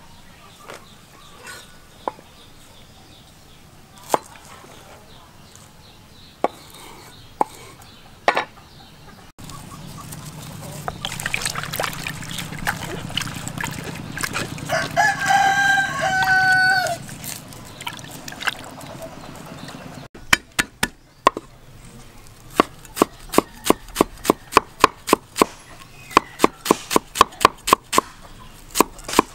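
Splashing water as green onions are rinsed by hand in a plastic basin, with a rooster crowing once in the middle, about two seconds long. Then a cleaver chops rapidly on a wooden cutting board, about three strokes a second, mincing green onion and garlic.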